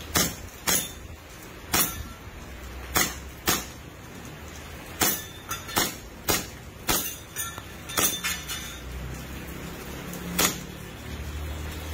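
WE Kimber Warrior gas blowback airsoft pistol firing on green gas. It fires about a dozen sharp single shots, each one the gas burst and the slide cycling, spaced unevenly half a second to a second and a half apart. The last shot comes about ten and a half seconds in.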